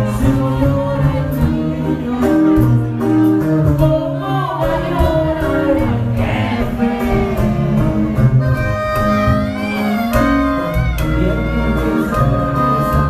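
Music: a recorded song with a singing voice over instruments.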